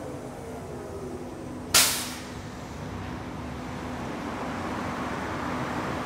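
Škoda 14TrSF electric trolleybus approaching with a steady low hum. A sharp hiss of released air from its brakes comes about two seconds in and fades within half a second. Its running noise then grows louder as it draws nearer.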